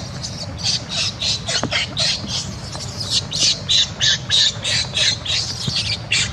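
Newborn macaque screeching in distress, a rapid string of short, shrill cries about three to four a second, while its mother pins and handles it.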